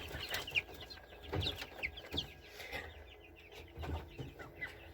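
A brood of chicks peeping: many short, high, falling peeps overlapping, with a few soft low knocks among them.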